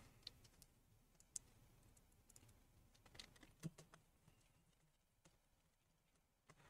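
Near silence with a few faint, scattered clicks and taps: small plastic and metal laptop parts being handled during reassembly.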